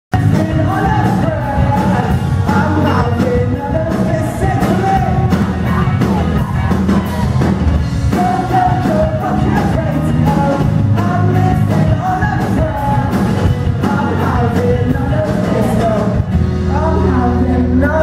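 A man singing live with a steadily strummed acoustic guitar, through the venue's microphone and PA.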